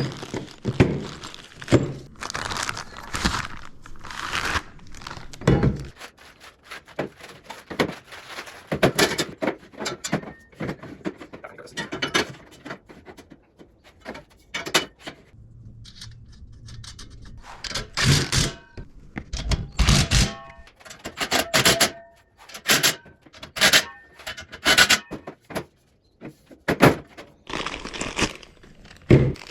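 Irregular knocks, clunks and scrapes of metal planer-stand parts and bolts being handled and fitted together, with some rustling of packaging.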